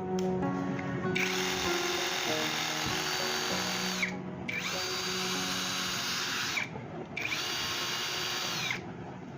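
18V brushless cordless drill running in three bursts of two to three seconds each, its motor whine spinning up at the start and winding down at the end of each burst. Background music plays underneath.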